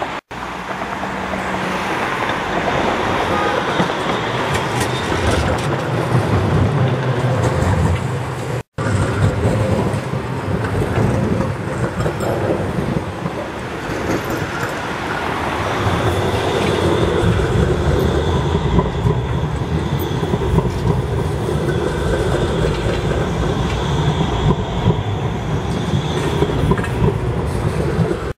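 Tram running on street track: continuous rumble with wheel clatter, and from about halfway a steady high-pitched squeal over it. The sound cuts out for an instant twice.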